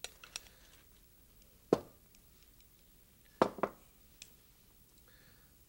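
Wooden spoon knocking against a glass bowl as chicken salad is scraped out onto a platter: a few soft clicks, one sharp knock nearly two seconds in, then two more close together about halfway through.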